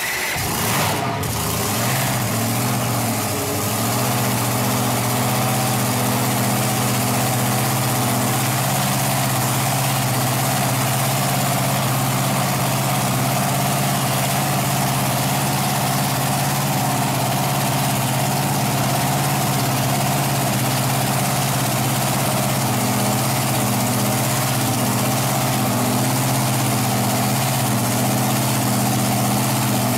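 Top Methanol dragster's V8 engine idling loud and steady through open headers, just after its first start following an engine rebuild; its note settles over the first few seconds and then holds even.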